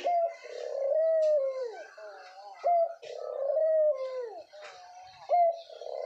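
A male white dove cooing. Each call is a short note followed by a long coo that drops in pitch at its end, repeated about three times.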